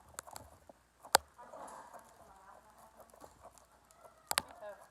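A few sharp knocks or clicks of hard objects, the loudest about a second in and a quick double knock near the end, with faint voices between.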